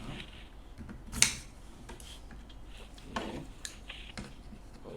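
Metal parts of an M2 carbine clicking and knocking as they are fitted together during reassembly: one sharp click about a second in, then a few lighter clicks later.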